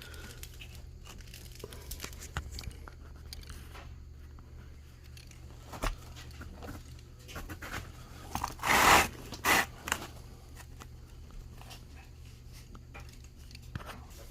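Razor knife cutting away the excess window screen mesh along the frame's edge: faint scratchy cuts, with a louder tearing, crinkling rasp about nine seconds in and a shorter one just after.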